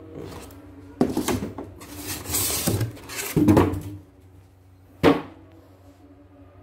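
Packing being handled: a plastic embroidery hoop shifted against styrofoam inside a cardboard box, making a run of scraping and rubbing noises from about a second in, then one sharp knock about five seconds in.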